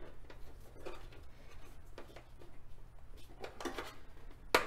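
Rubber glove box cover being rubbed and pressed onto the stiff plastic snaps of a motorcycle lower fairing: soft handling noises and small clicks, then one sharp click near the end as a snap is pushed on.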